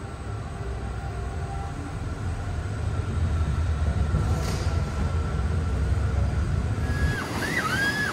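Roller coaster train rolling through an enclosed hall, a steady low rumble with a brief hiss about four and a half seconds in. Near the end the rumble stops and a few high chirps are heard.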